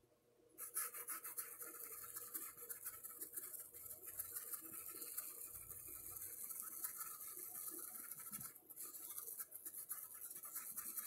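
A pituá paintbrush scrubbed and wiggled against a painted cup to blend paint, a steady scratchy brushing that starts about half a second in and pauses briefly about eight and a half seconds in.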